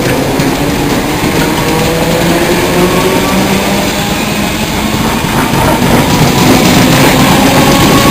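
Electric multiple unit running alongside the platform, wheels rumbling on the rails, with a motor whine that rises slowly in pitch.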